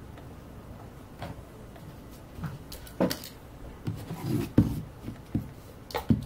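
Hands handling an aluminum-cased power bank on a tabletop: a few scattered knocks and taps as it is picked up and turned over.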